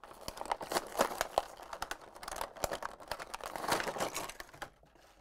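Clear plastic blister packaging crinkling and crackling as it is pried and torn away from its card backing. A dense run of sharp crackles and clicks stops a little before the end.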